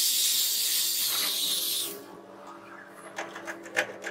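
Cordless drill running at full speed, its bit boring through plywood with a high whine, then stopping abruptly about halfway through. A few light clicks follow near the end.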